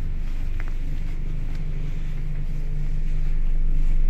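ER2 electric train running: a steady low rumble with a low hum that grows stronger, and the sound swells louder near the end.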